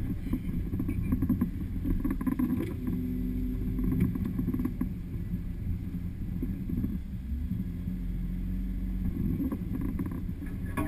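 Jeep JK Wrangler's 3.8-litre V6 running at low revs in low-range crawl over a rutted trail, heard from inside the cab, its pitch held steady for a few seconds at a time. Light knocks and rattles from the body come over the rough ground in the first few seconds.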